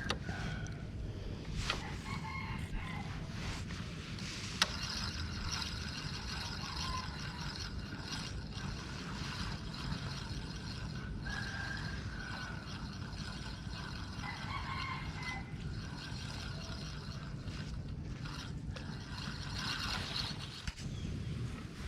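Roosters crowing several times over a steady low rumble, with a few sharp clicks.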